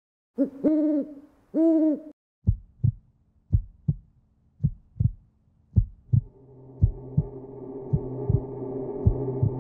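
Film soundtrack sound design: two short hooting tones, each rising then falling in pitch, followed by a low double thump like a heartbeat, repeating about once a second. From about six seconds a droning sustained tone swells in gradually beneath the beats.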